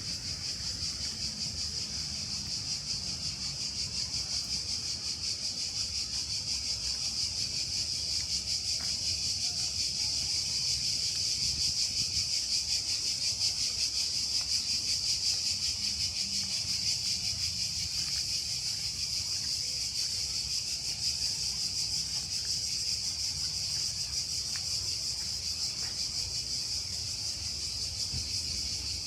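Cicadas buzzing in a steady, high-pitched chorus that swells a little in the middle, over a low background rumble.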